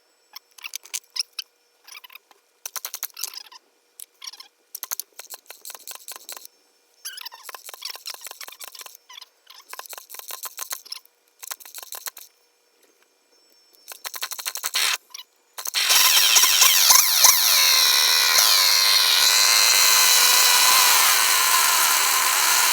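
Scattered clicks and rattles of handling, then, about 15 seconds in, the rebuilt Poulan-built Craftsman chainsaw's two-stroke engine starts running loudly, its revs rising and falling.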